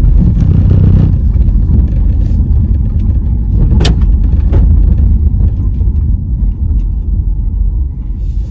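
Car driving, heard from inside the cabin: a steady low rumble of engine and road noise, with a sharp click about four seconds in and a fainter one just after.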